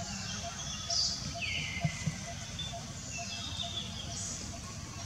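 Scattered high-pitched animal chirps and squeaks, including a falling whistle about a second and a half in. A faint, evenly repeated ticking runs underneath.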